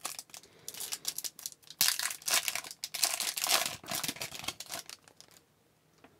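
Wrapper of an Upper Deck hockey card pack being torn open and crinkled by hand, a dense run of rustling and tearing that stops about five seconds in.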